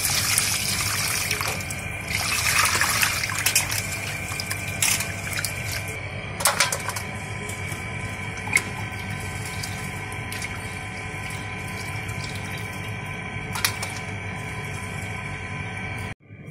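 Tap water running over fish and eel pieces being washed by hand in a steel bowl, followed by a few sharp clicks as the wet pieces are handled and set on a steel plate, over a steady faint hum.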